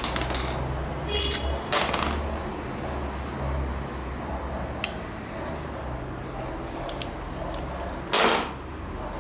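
Metal pieces clinking and clattering with short ringing knocks, a few in the first two seconds and the loudest near the end, over a low steady hum.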